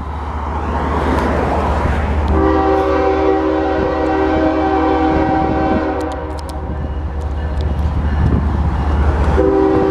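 Locomotive horn sounding a long multi-tone chord as a train approaches a grade crossing. It starts about two seconds in, breaks briefly near the end and then sounds again, over a steady low rumble.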